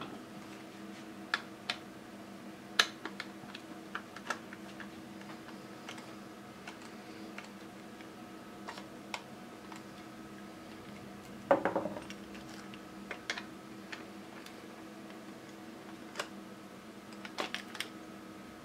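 Scattered clicks and knocks from a laser toner cartridge being handled and turned over, with a short clattering run of knocks about halfway through and a few more near the end. A faint steady hum runs underneath.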